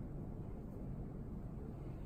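Room tone: a steady low hum with a faint even rumble, with no distinct events.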